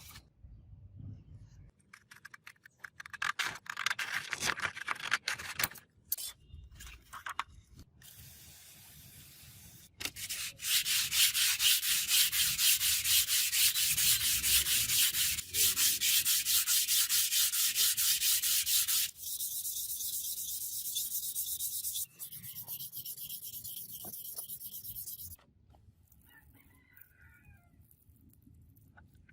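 Sanding: a few seconds of uneven rasping strokes, then a long steady sanding hiss that drops to a thinner, higher hiss about two-thirds of the way in and cuts off several seconds before the end.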